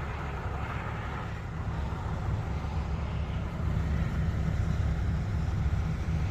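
Steady low rumble of a vehicle engine running, getting a little louder about four seconds in.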